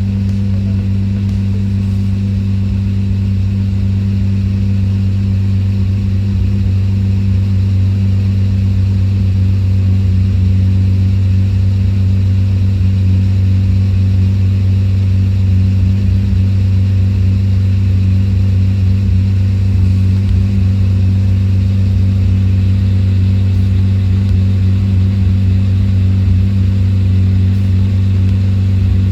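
Lamborghini Murcielago's V12 engine running steadily at an even, unchanging pitch.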